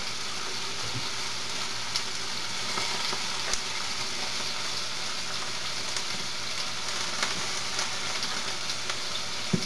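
Soy-marinated chicken strips sizzling steadily in a stainless steel skillet, with a few sharp pops of spattering fat.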